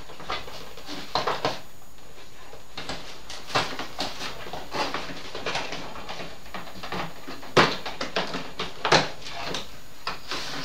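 Handling noise of packaging as an RC helicopter is worked free of its cardboard box: irregular rustling, scraping and small clicks, with two sharper knocks in the second half.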